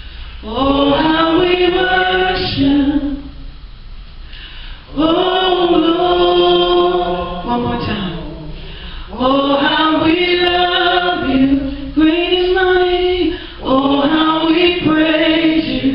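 A woman singing a gospel worship song into a microphone, in long held phrases with short pauses between them.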